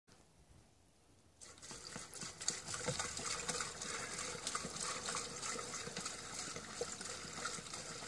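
Fuel pouring from a 5-gallon plastic jug through a flexible-spout funnel into a backhoe's fuel tank: a steady splashing gush that starts about a second and a half in.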